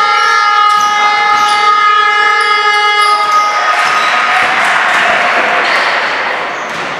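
A loud, sustained horn blast made of several steady tones sounding together, cutting off about three and a half seconds in, over the thud of a basketball and court noise. After it comes a steady noisy rush.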